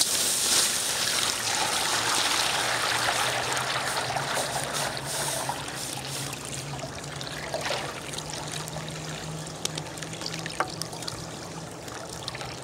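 Water poured from a plastic bucket into a metal bowl set over a campfire. It splashes loudly at first, then settles into a steadier pour that gradually gets quieter as the bowl fills.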